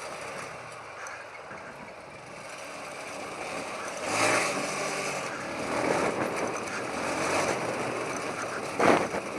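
TVS Apache RTR 180 motorcycle's single-cylinder engine running as the bike is ridden over a rough dirt trail, getting louder in the second half, with two brief louder surges, about four seconds in and near the end.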